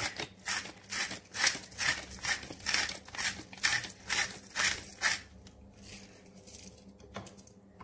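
Salt being shaken or ground out of a salt container over a bowl of mashed potato: a quick run of short rasping strokes, about three a second, that stops about five seconds in, with a few faint ones after.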